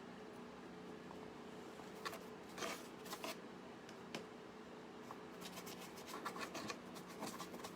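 Light scratching and tapping of a paintbrush working dark paint into a puppet head, a few scattered strokes and then a quick run of small ticks near the end, over a steady low hum.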